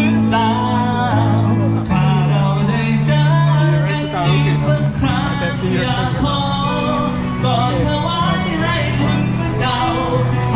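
Live band music with a male singer, over a steady bass line whose notes change every second or two.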